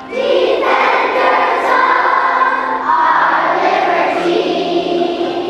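A large group of children's voices rising together all at once, loud and massed, over music.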